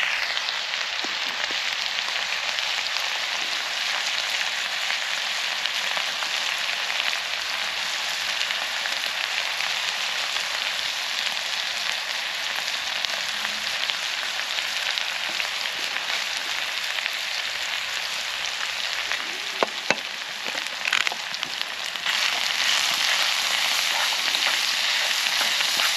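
Chopped onions and green peppers sizzling steadily in hot oil in a frying pan. There are a few light knocks about twenty seconds in, and the sizzle grows louder near the end as the vegetables are stirred with a wooden stick.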